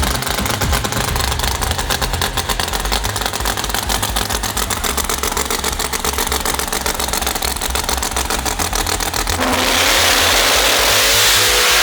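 A Pro Mod drag car's engine runs with a rapid, even, rough pulse. About nine and a half seconds in it suddenly goes to a loud full-throttle run, and its pitch rises as it accelerates.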